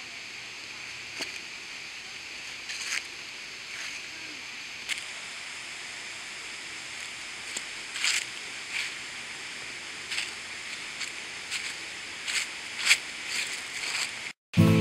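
Footsteps crunching on dry fallen leaves and stone, irregular crackles over a steady outdoor hiss. Near the very end the sound cuts out for a moment and acoustic guitar music begins.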